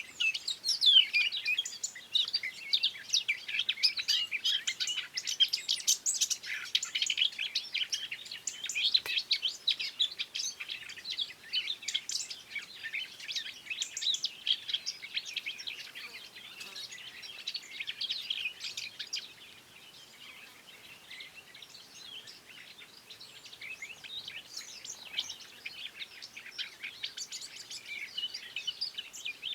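Songbirds singing and chirping in a dense chorus of quick, high notes, overlapping one another; the calls thin out for a few seconds past the middle, then pick up again.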